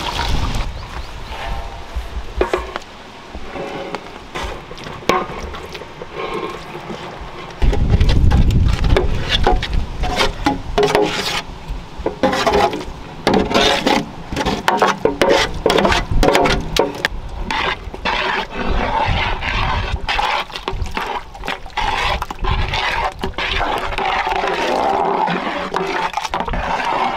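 A metal utensil stirring and scraping through thick bhaji in a large cooking pan, with many sharp knocks against the pan. A low rumble comes in at about eight seconds.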